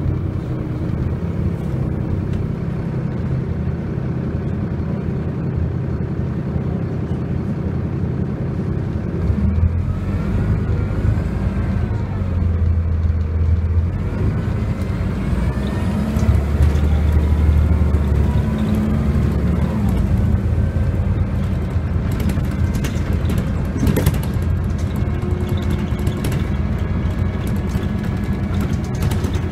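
Inside a Volvo B7L single-deck bus under way: its rear-mounted straight-six diesel runs with a deep rumble and a whine that rises and falls in pitch, the rumble swelling about halfway through. In the last third come many sharp clicks and rattles.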